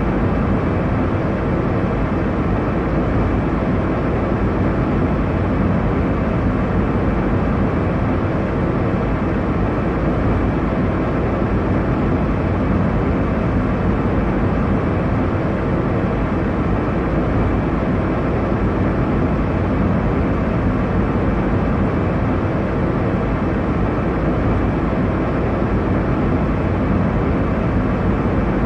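Airliner cabin noise in flight: a steady, even rush of engine and air noise, deepest in the low range, with no change.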